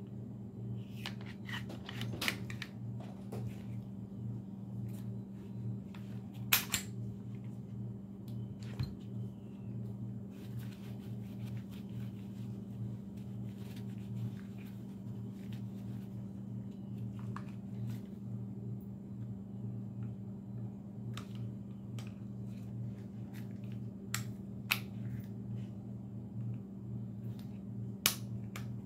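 Scattered sharp metallic clicks and light rattles from pistol parts being handled and reassembled, with the loudest clicks about six seconds in and near the end, over a steady low hum.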